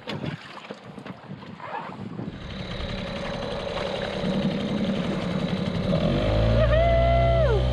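Small Mercury outboard motor on an inflatable dinghy running, coming in about two seconds in and growing steadily louder, then stepping up to a stronger, steady note around six seconds in as it is throttled up and the dinghy gets under way.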